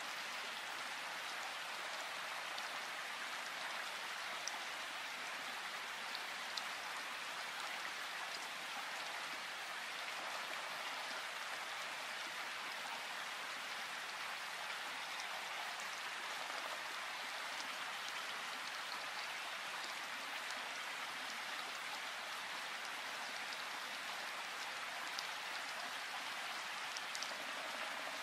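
Steady rain falling in a forest: an even hiss, with a few separate drops ticking now and then.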